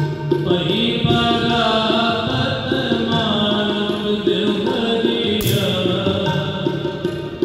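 Background devotional music, a Sikh shabad kirtan: a voice chanting in long held notes that step up and down over instrumental accompaniment. A brief sharp hiss cuts in about five and a half seconds in.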